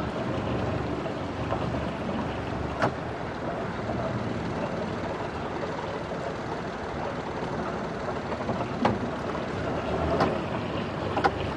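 Small sailboat's engine running steadily at low speed, with four short sharp knocks spread through.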